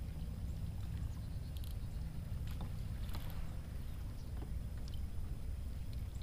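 Kayak drifting on river water, heard through a camera mounted on the kayak: a steady low rumble with a few faint clicks and taps about a second and a half to three seconds in.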